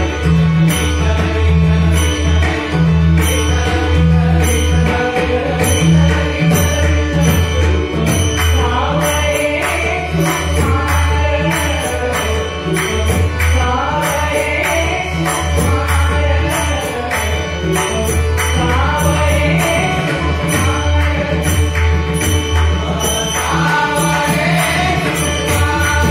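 Marathi devotional bhajan: a pakhawaj drum keeps a steady rhythm of deep strokes, small hand cymbals click on the beat, and a harmonium sustains notes under male singing. The sung line comes through more strongly from about eight seconds in.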